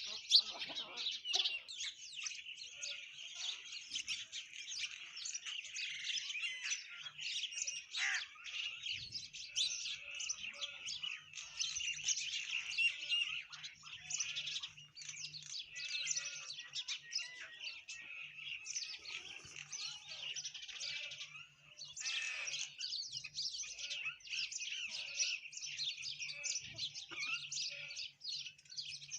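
A flock of sparrows and common mynas chirping and chattering in a dense, continuous chorus of short, overlapping calls, with a brief lull about three-quarters of the way through.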